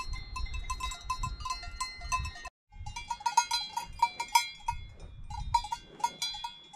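Bells on grazing cows clanking irregularly, several bells ringing at once, over a low rumble. The sound drops out briefly about two and a half seconds in, then the clanking carries on.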